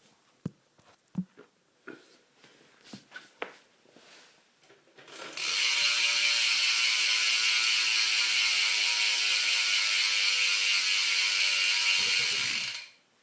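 Shadow Raptor rear hub of a BMX bike freewheeling. A few handling clicks and knocks come first. About five seconds in, the pawls start a loud, rapid ratcheting buzz as the wheel spins, dropping slightly in pitch as it slows, and it stops abruptly near the end.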